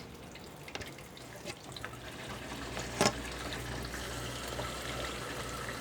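Brastemp Ative BWG11 washing machine filling with water, a steady rush of water into the tub. A low hum joins about two seconds in, and there is one knock about a second later.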